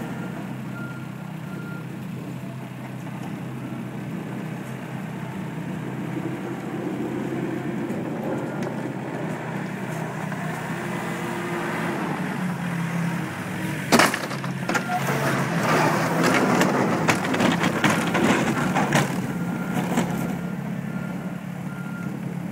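Komatsu WA50 compact wheel loader's diesel engine running steadily while plowing snow, with a faint repeated beep. About two-thirds of the way through there is one sharp bang, followed by several seconds of clanks and scraping from the steel plow blade on the pavement.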